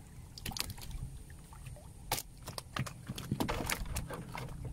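River water splashing and sloshing at the side of a small boat, with a run of short sharp splashes and knocks as a speared tilapia is lifted out of the water.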